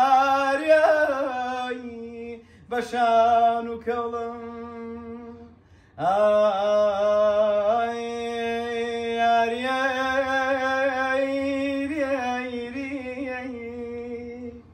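A man singing unaccompanied in long, drawn-out held notes, in three phrases with short breaks about two and a half and six seconds in.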